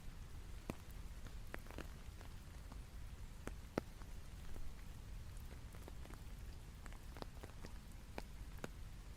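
Sparse raindrops ticking one by one on a surface, at irregular intervals of about one or two a second, over a faint low rumble.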